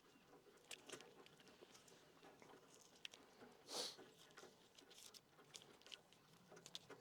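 Near silence with faint scattered clicks and ticks, and one brief rustle about four seconds in.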